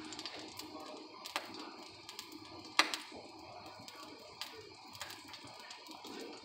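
Oil in a hot wok over a gas burner crackling faintly, with a few scattered small pops, the sharpest about three seconds in.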